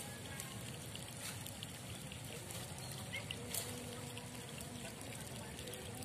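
Faint, steady trickle of moving water, with a single soft click about three and a half seconds in.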